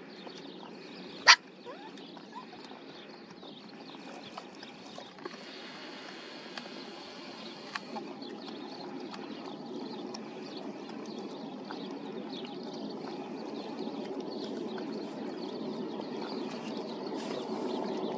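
Puppies feeding together, making small wet chewing and lapping clicks over a low background rumble that grows louder through the second half. One sharp click stands out about a second in.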